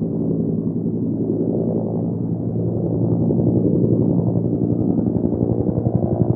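A low, steady droning sound effect that slowly swells and breaks into a fast, even pulsing near the end.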